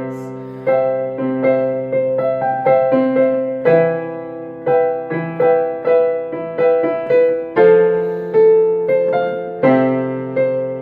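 Solo keyboard playing an instrumental passage of a slow worship song: a steady run of chords and melody notes, each struck and then dying away.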